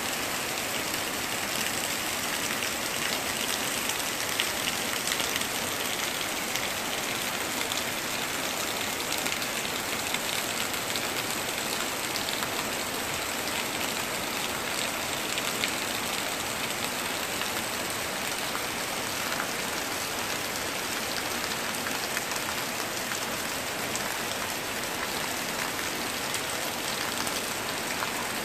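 Heavy rain falling steadily on the ground, plants and roofs: a constant hiss laced with a fine patter of drops, which the uploader takes for typhoon rain.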